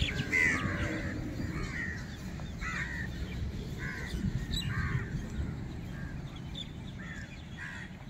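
Crows cawing, short harsh calls repeated at uneven intervals, over a low background rumble.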